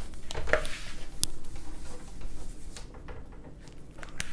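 Cloth wiping a whiteboard clean: a run of uneven rubbing strokes that dies away after about three seconds, with a sharp click a little over a second in and another near the end.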